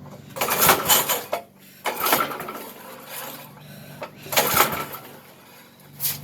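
Vintage Briggs & Stratton 5 hp flathead engine being pull-started, the recoil starter yanked four times in short bursts without the engine catching. The owner takes the failure to start for a flooding carburetor.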